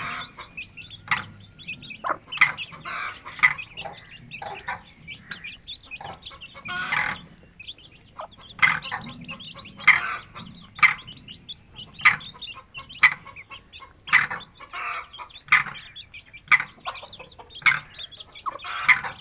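Aseel hen and her chicks calling as they feed: a steady run of short clucks and peeps, roughly one a second.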